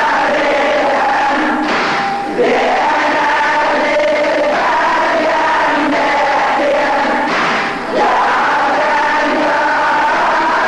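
Sung Shia lament (latmiya): male voices chanting held, wavering notes with a choral backing. The singing is broken twice by a short rushing noise, at about two seconds and again about seven and a half seconds in.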